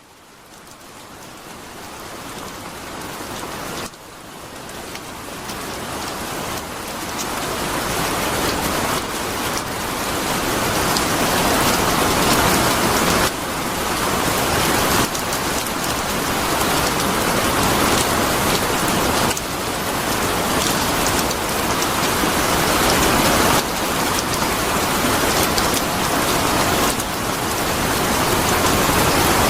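Steady rain falling, fading in over the first several seconds and then holding at an even level.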